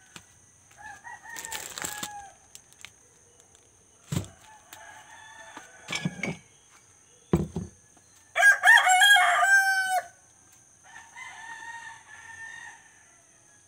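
Roosters crowing, four crows in turn. The loudest and nearest comes about eight and a half seconds in and lasts about a second and a half; the others are fainter. Two dull thumps fall near four and seven seconds in.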